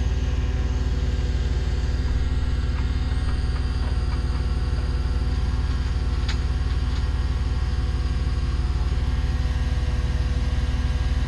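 Cat propane forklift's engine running steadily with a low rumble. A single sharp click comes about six seconds in.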